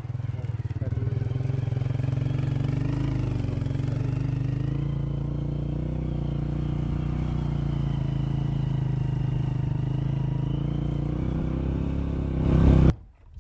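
Motorcycle engine running steadily as the bike is ridden. It gets louder briefly near the end, then cuts off suddenly.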